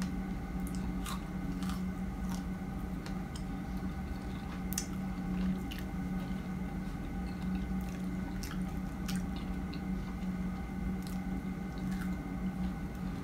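Close-up wet chewing and biting of fresh strawberries, with scattered small clicks and squishy mouth sounds, over a steady low hum.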